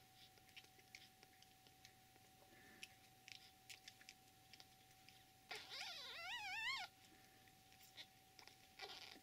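A day-old kitten mewing once, a thin, high call of a little over a second that wavers up and down in pitch, while the blind litter jostles for a teat. Faint soft clicks are heard around it, and a brief scratchy sound comes near the end.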